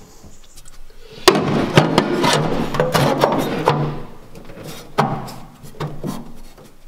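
A hand knocking on and rubbing over welded sheet-steel boxes in a car floor: a few sharp knocks, the loudest about a second in, with scraping and handling between them.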